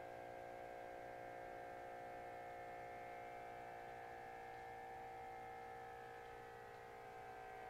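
Automatic blood pressure monitor's small pump motor running as it inflates the arm cuff: a faint, steady, even-pitched whine.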